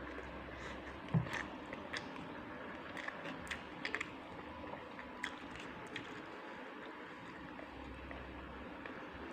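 Person chewing food with wet mouth clicks and smacks, scattered through the first six seconds, over a steady background hum.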